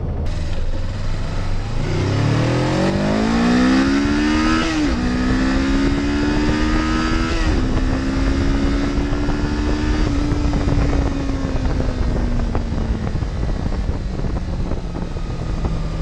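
Suzuki GS500 motorcycle's air-cooled parallel-twin engine accelerating through the gears: the revs climb, drop at a gear change about five seconds in, climb again and drop at a second change about halfway, then hold and fall away as the throttle eases off. A steady rushing noise runs underneath.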